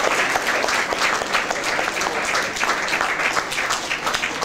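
A small group of people applauding, many hands clapping in a dense, steady patter.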